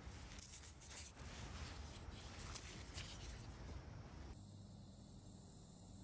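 Faint rustling and scraping of a repellent-wipe packet being handled and skin being wiped. About four seconds in this gives way abruptly to a steady high hiss.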